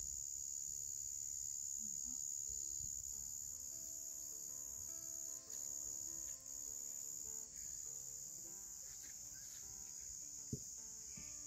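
Steady high-pitched chirring of crickets at night, with one sharp knock about ten and a half seconds in.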